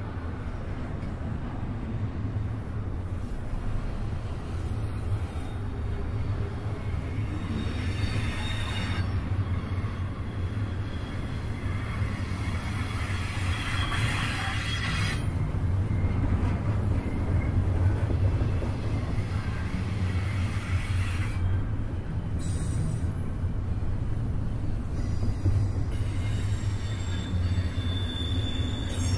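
Freight train rolling past: a steady low rumble of wheels on rail, with brief high wheel squeals near the end.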